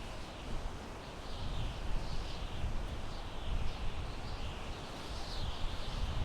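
Wind blowing through pine trees: a steady rush with a low rumble that swells and eases in gusts. Faint high chirps repeat throughout.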